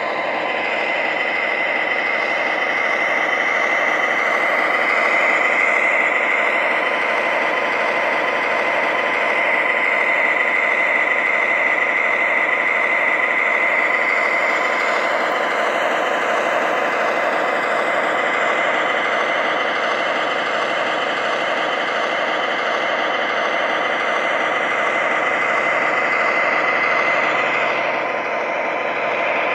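The onboard sound system of an MTH O gauge ES44AC model locomotive playing a diesel engine idling. It is steady and continuous, with a high whine held over it.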